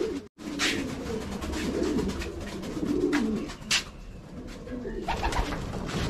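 Domestic pigeons cooing, several birds overlapping in low warbling calls, with two short sharp noises among them.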